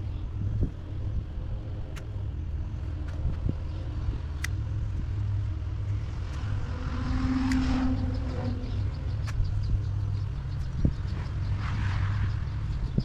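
An engine running steadily with a low hum, with a few sharp clicks and knocks over it.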